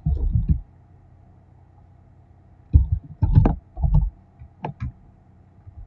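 Typing on a computer keyboard, heard as clusters of dull taps, then a couple of sharper clicks shortly before the end.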